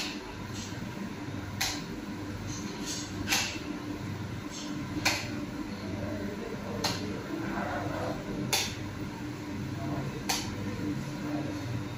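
Steady machine hum in a bakery work room, with a sharp click repeating at an even pace about every second and three-quarters.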